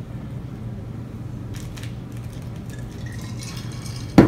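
Steady low hum with a few faint clicks, then one short, loud thud about four seconds in.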